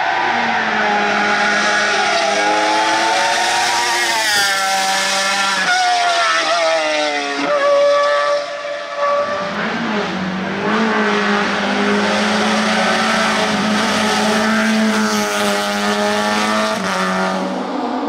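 Race car engines revving high as cars climb past at full throttle, the note rising and breaking with quick gear changes; about halfway through the sound cuts to a second car holding a high, steady engine note.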